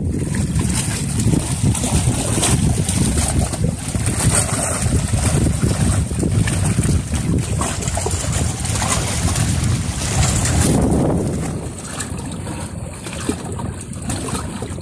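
Wind buffeting the microphone over seawater sloshing and splashing around someone wading in the sea.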